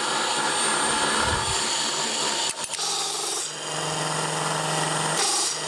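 Electric motor on a variable-frequency drive running steadily, turning a Sanden air-conditioning compressor through V-belts. The noise dips briefly about two and a half seconds in, then a steady low hum joins about a second later.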